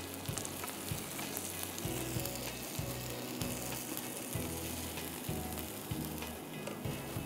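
Hot beef Behari kebab sizzling and crackling on a foil-lined baking tray just out of the oven, with light clicks of metal tongs as the pieces are lifted.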